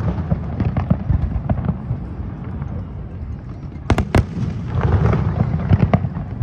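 Aerial fireworks display: a steady rumble and crackle of shells bursting, with two sharp, loud bangs in quick succession about four seconds in.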